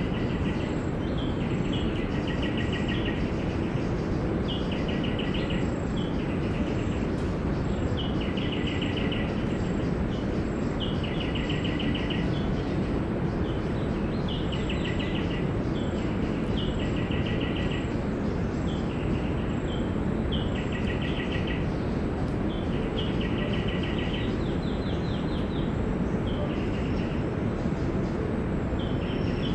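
A bird repeating a short, rapid trilled call every couple of seconds over a steady background noise.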